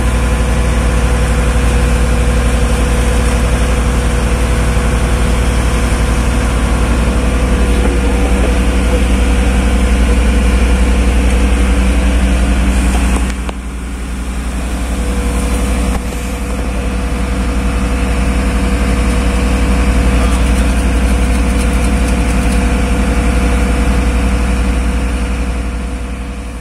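Tugboat's engine machinery running steadily: a deep, constant drone with a steady hum on top. It dips in level for a few seconds about halfway through, then returns.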